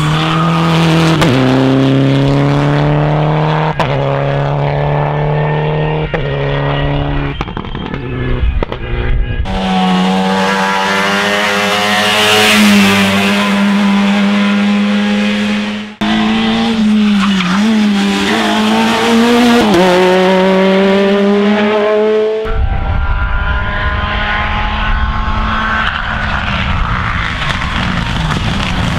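Rally cars driven hard on a stage, engines revving high and changing gear, the pitch climbing and dropping in steps, with some tire squeal. The sound cuts abruptly three times from one car to the next.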